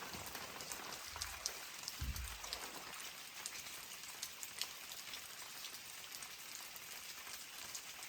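Steady rain falling, with many scattered drips of water ticking through. There are two soft low thumps near the start.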